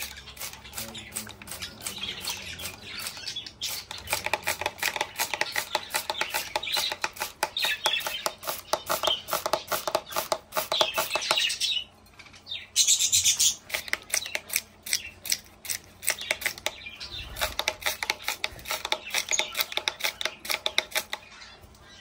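Caged budgies and lovebirds chirping and chattering, with rapid wing flutters as they are misted with water. A spray bottle hisses briefly about thirteen seconds in.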